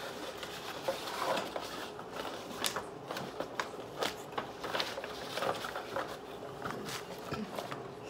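Irregular crinkling and rustling of snack packaging and a paper insert being handled, with scattered light clicks and taps.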